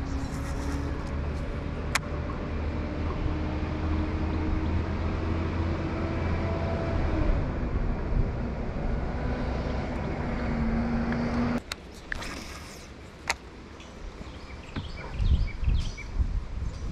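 Boat motor running steadily, its hum stepping up in pitch a few seconds in and back down later, then shutting off abruptly about twelve seconds in. A few sharp clicks and low knocks follow.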